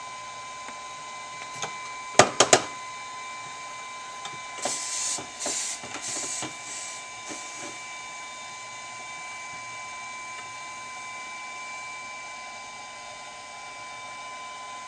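Three sharp clicks about two seconds in, then a run of about five short hissing strokes: a hot soldering iron tip being wiped on the wet cleaning sponge of its stand. A steady faint whine runs underneath.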